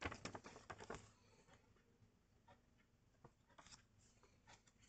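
Small folded paper pocket timetables being handled: a burst of paper rustling and crinkling in the first second, then a few faint taps and rustles of the cards.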